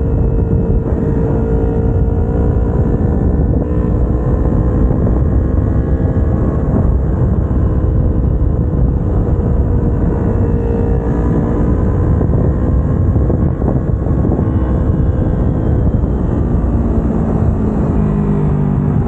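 Kawasaki Ninja 250R's parallel-twin engine running at steady road speed while the bike is ridden, with heavy wind rush on the microphone. The engine pitch wavers a little and drops near the end as the revs come down.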